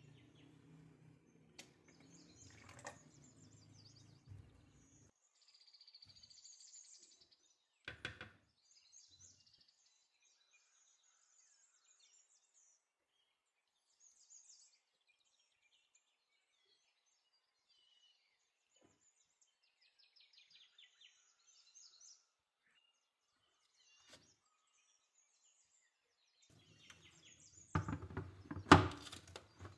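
Mostly quiet kitchen room tone with faint bird chirps and a low hum that stops about five seconds in; a single knock comes about eight seconds in, and near the end a burst of loud knocks and clatter.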